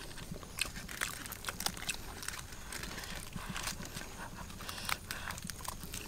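Chewing and eating sounds, wet mouth clicks and smacks, with small crackles as grilled fish is pulled apart by hand.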